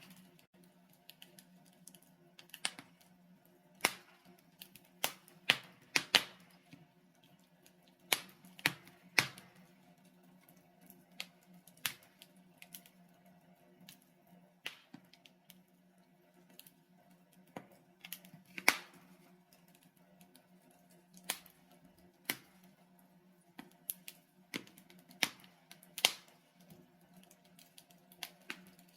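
Logs burning in a fireplace, crackling with irregular sharp pops, one to three every couple of seconds, over a faint steady low hum.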